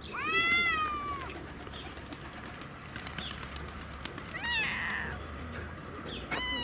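Cats meowing: one long meow that rises and falls at the start, a couple of short meows about four and a half seconds in, and another short meow near the end, with light clicks in between.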